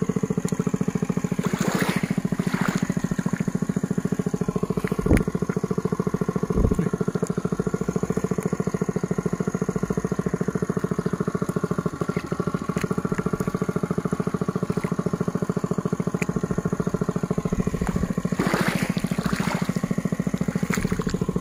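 A small engine running steadily at an even speed, with two short knocks about five and six and a half seconds in.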